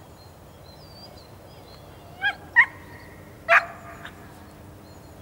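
A dog barking three times: two quick barks a little over two seconds in, then a third about a second later, with faint birdsong behind.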